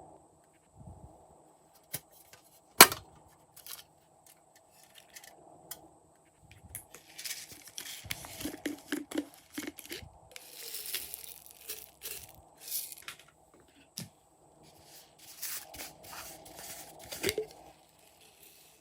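Slime being mixed by hand: irregular sticky crackles, pops and clicks, with denser stretches of crackling in the middle and near the end and one sharp click about three seconds in.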